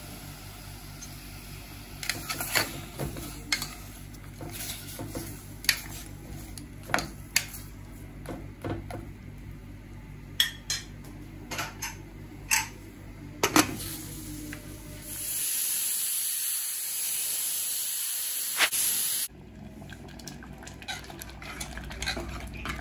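Metal spoon knocking and scraping against an aluminium pressure cooker as mango pieces and jaggery are stirred, about a dozen sharp clinks. About fifteen seconds in, a steady high hiss of steam from the pressure cooker runs for about four seconds and cuts off suddenly, then a few lighter stirring clinks follow.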